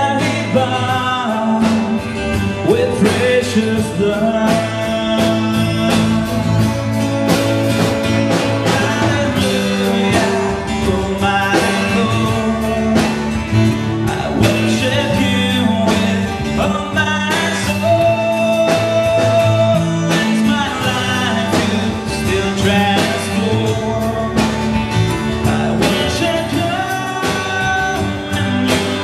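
Live band playing a worship song: drum kit keeping a steady beat under bass guitar and electric guitars, with a melodic lead line on top.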